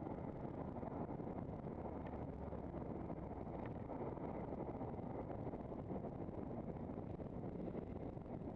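Steady wind and road noise from a camera on a moving handcycle, with motor traffic running alongside on the same road.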